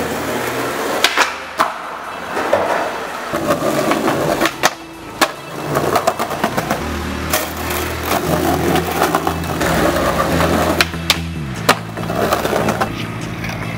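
Skateboard wheels rolling over tiled pavement, with repeated sharp clacks of the board popping and landing, over background music.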